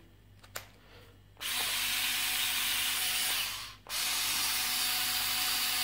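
Parkside PAS 4 B3 4-volt cordless screwdriver, its angle attachment fitted, running free with no load: a steady whirr for about two and a half seconds, a short stop, then a second run of about two seconds. Two faint clicks come first, as the bit is put in.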